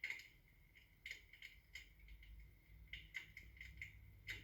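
Faint crackling-firewood sound effect from an electric fireplace's built-in speaker: irregular pops and snaps, a few a second.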